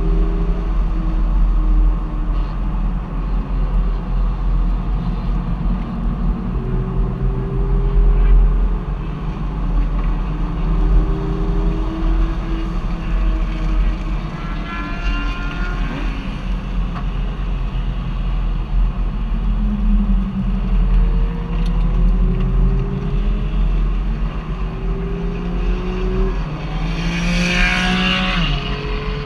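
Car engine running under way, its pitch climbing and dropping several times as it accelerates, over a steady low road rumble. A short rushing noise near the end.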